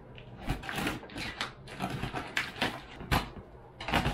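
Cardboard shipping box being handled and shifted: irregular scrapes, rustles and taps of cardboard and packing tape, with a sharp knock about three seconds in and the tape being scratched open near the end.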